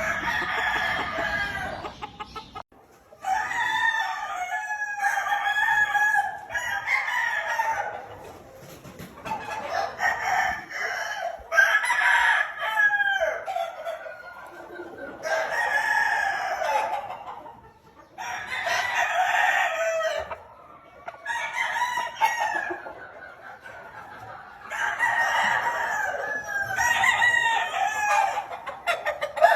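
Gamefowl roosters crowing one after another, a crow every few seconds, some overlapping, with hens clucking.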